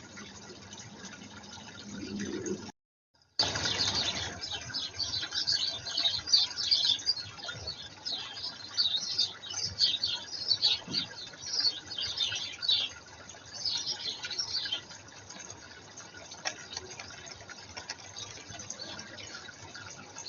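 Garden birds at a pond: a busy spell of short, high sounds with water noise, starting just after a brief dropout a few seconds in and dying away after about fifteen seconds.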